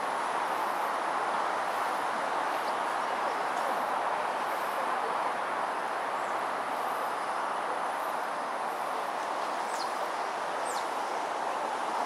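Steady outdoor rushing background noise, with two faint, quick, high downward chirps near the end.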